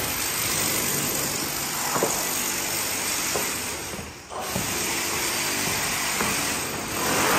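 Electric power tool running on concrete during wall hacking, a steady grinding noise. It stops briefly about four seconds in, starts again, and gets louder near the end.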